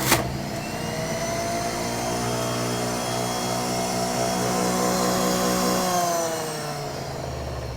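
Electric juicer's motor running steadily on its low setting while juicing apple, celery and carrot, then winding down with a falling pitch near the end as it is switched off. A short click right at the start.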